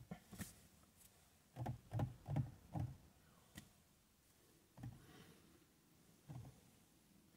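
Faint handling noise: a quick run of four soft taps about two seconds in, then a couple of single taps, as a bare hand touches and presses flat on the tempered-glass screen protector of a car touchscreen.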